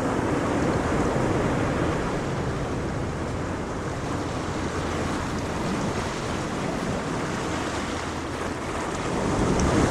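Ocean waves rumbling in a continuous wash of surf, swelling gently and growing louder near the end.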